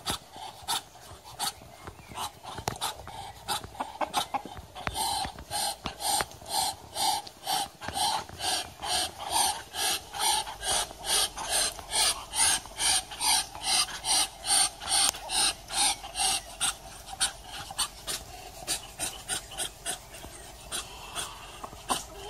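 Muscovy ducks giving a rapid run of breathy, hissing huffs, about two or three a second. The huffs grow louder a few seconds in and fade again toward the end.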